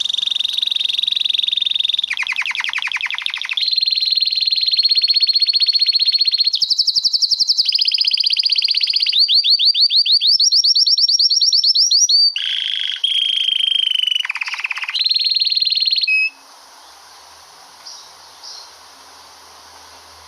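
Male canary singing a long rolling song: a chain of fast, high trills, each held for a second or two before switching to another, some sweeping up in pitch. The song stops about sixteen seconds in.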